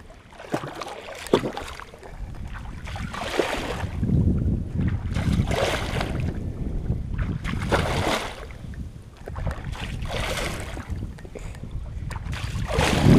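Pond water sloshing and splashing around people wading chest-deep, in surges about every two seconds, with wind rumbling on the microphone; the loudest splash comes near the end as a wet cast net is lifted from the water.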